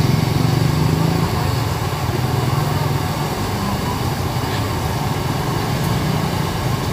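Hot oil in a large wide wok bubbling and sizzling as seafood deep-fries in it, under a steady low engine-like hum.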